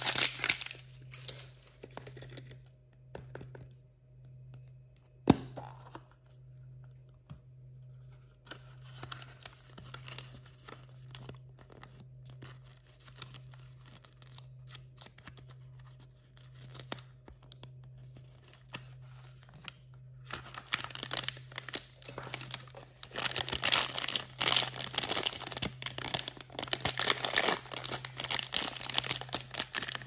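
Hands unwrapping surprise toys: a plastic surprise egg gives one sharp click about five seconds in as it snaps open, followed by a stretch of quiet handling and light paper rustles. From about two-thirds of the way through, a paper wrapper is torn open and crinkled loudly and continuously. A steady low hum sits under it all.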